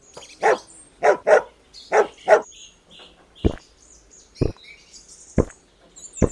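A dog barking, a quick run of five barks in the first couple of seconds, then four short, sharp sounds about a second apart. Birds chirp faintly in the background.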